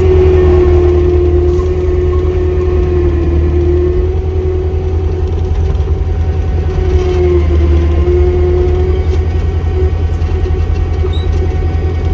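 Caterpillar skid-steer's diesel engine running hard at high throttle, a steady loud engine hum with a high whine over it that sags briefly about seven seconds in, as under load.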